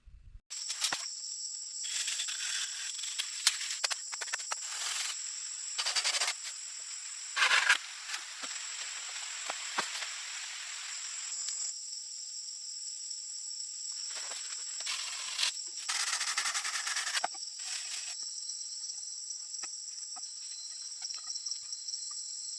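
Insects chirring steadily at a high pitch, overlaid by separate bursts of rustling and crunching, several of about a second each; the loudest come about a third of the way in and again past two thirds.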